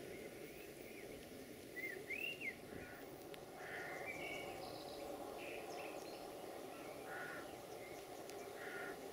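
Faint outdoor ambience: several birds calling with short chirps and whistled notes, the loudest a pair of rising-and-falling calls about two seconds in, over a steady low background rumble.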